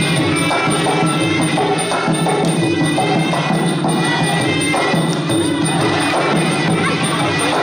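Traditional Khmer boxing ringside music: a reed oboe playing a held melody over drums and small hand cymbals, which keep a steady, driving beat throughout.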